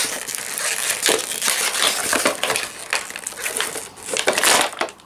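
Plastic toy packaging crunching and crackling in a continuous, irregular jumble as hands wrestle a figure free of it. It is loudest at the start and again shortly before the end.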